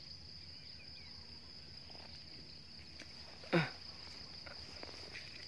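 Steady high-pitched insect buzz, with one brief, loud falling sound about three and a half seconds in.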